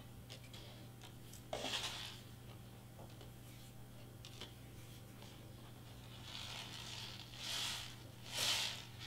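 Cardstock 3D letter shaker box being handled and tilted: a brief scrape about a second and a half in, then a few short swishing rustles near the end as the glitter and sequin filling slides inside.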